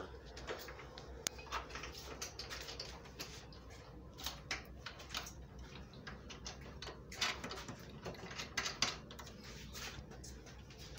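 Irregular light metal clicks and taps of nuts and washers being handled and threaded by hand onto a bench vise's mounting bolts.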